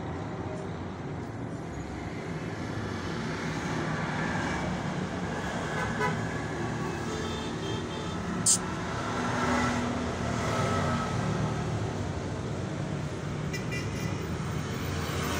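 Steady background road-traffic noise with a few brief horn toots, and one sharp click about eight and a half seconds in.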